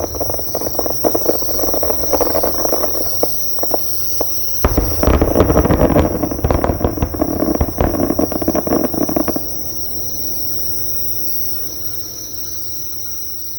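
Distant fireworks: a dense crackle of bursts over a low rumble, in two heavy volleys, stopping abruptly about nine seconds in. Under it, insects close by keep up a steady high trill, with a second insect chirping in short regular pulses.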